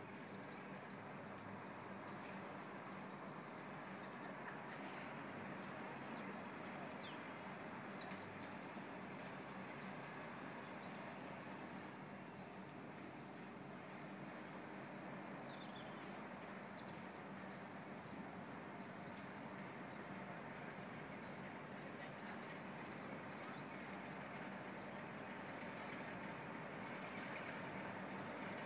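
Small birds chirping and singing in short repeated calls over a steady background of hiss and low hum.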